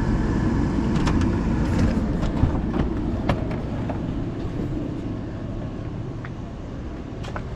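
Vehicle running with low road and engine rumble heard from inside the cab, growing gradually quieter as it slows, with a few light clicks.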